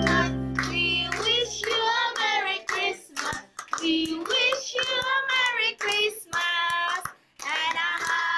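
A group of people, children among them, singing together while clapping their hands. A low sustained music note dies away in the first two seconds.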